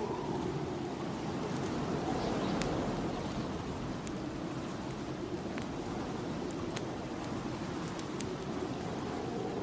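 Snowstorm wind blowing steadily, rising and falling a little, with scattered sharp crackles from a wood fire burning in a fireplace.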